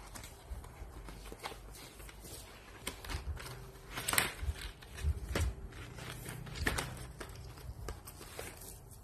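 Cardboard packaging of a coloured-pencil set being handled: the printed sleeve and inner tray rub, slide and knock in scattered scrapes and taps, the loudest about four seconds in.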